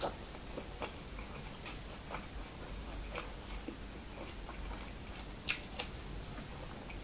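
Close-miked chewing of a mouthful of sticky rice and minced buffalo larb, mouth closed, with soft irregular wet clicks and a couple of sharper ones about five and a half seconds in.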